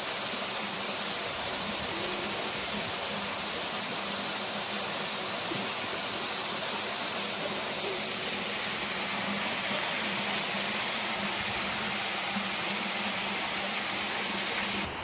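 A steady, even hiss with no clear events in it, which cuts off suddenly near the end.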